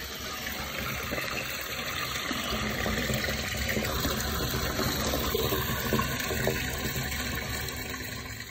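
Dirty carpet-cleaning waste water gushing steadily out of a drain hose and splashing into a floor drain, fading near the end.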